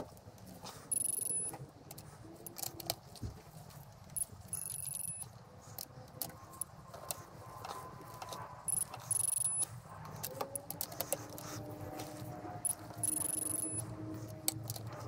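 Digital angle torque wrench beeping about five times, each a short high beep of roughly half a second, as cylinder head bolts are turned through 90 degrees. Each beep marks a bolt reaching its set angle. Between the beeps come metallic ratchet clicks and socket clatter.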